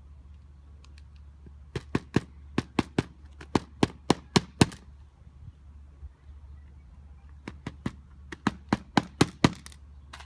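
Hammer driving roofing nails through a new asphalt shingle: two runs of quick, sharp blows, about a dozen strikes each at four or five a second, with a pause of a few seconds between them.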